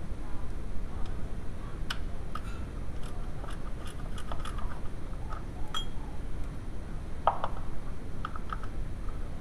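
Scattered light metallic clicks and clinks of hand tools and engine parts being handled, over a steady low hum.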